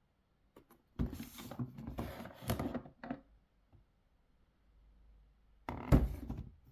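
A toy box and its packaging being handled: about two seconds of scraping and rustling, then a shorter burst near the end with a sharp thump.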